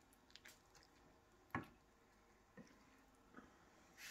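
Near silence broken by a few faint, soft taps and squishes of oven-braised lamb shanks being handled in a metal roasting tray. The clearest comes about a second and a half in.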